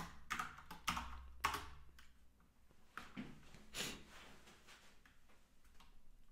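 Computer keyboard keystrokes: a quick run of clacks in the first two seconds, then only a few scattered, softer taps.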